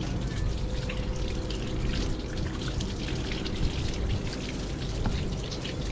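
Water running from an outdoor tap over a gutted flathead held in the hands, splattering and trickling onto a metal cleaning table.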